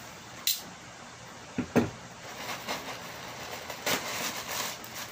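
Handling noises from unboxing a plastic helmet visor: a few sharp clicks and knocks, the loudest just under two seconds in, with light rustling between.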